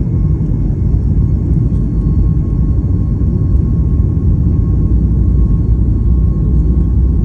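Jet airliner heard from the passenger cabin during takeoff: a loud, steady low rumble from the engines and runway, with a thin steady whine above it.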